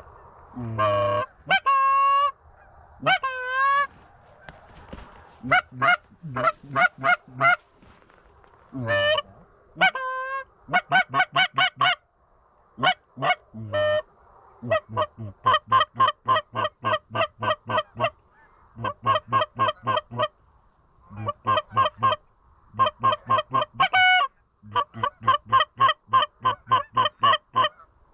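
Canada goose honking and clucking, loud and close: a few longer honks that bend in pitch, then fast runs of short clucks, about four a second, broken by brief pauses.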